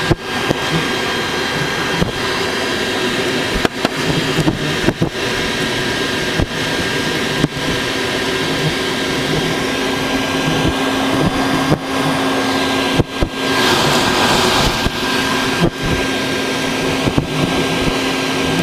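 A vacuum cleaner runs steadily with a high whine, sucking wasps into its hose from a nest. Frequent sharp clicks and knocks sound through it, and its hiss grows louder for a couple of seconds around two-thirds of the way in.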